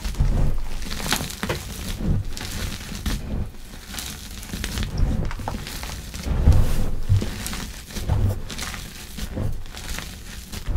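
Hands crushing and crumbling soft gym-chalk blocks mixed with charcoal powder in a bowl. Irregular crunches and crackles come with dull thumps as the palms press down into the powder.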